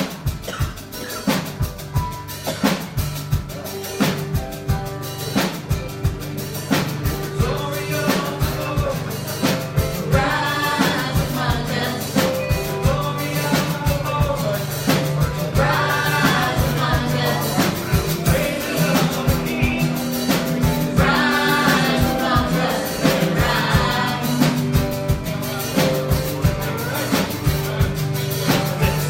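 Worship music from a band with a steady drum-kit beat and bass. Singing comes in about ten seconds in.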